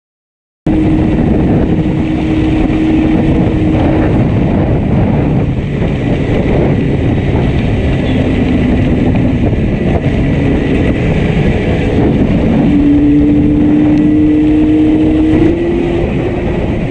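Yamaha RD350 two-stroke twin engine running while the bike is ridden, with heavy wind noise on the microphone; one cylinder is misfiring heavily, so it runs on reduced power. The sound cuts in abruptly about half a second in, and the engine note climbs a little near the end.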